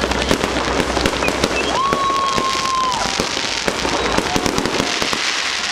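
Fireworks display: a dense run of crackling firecracker-type pops, with a single whistling tone held for about a second, about two seconds in.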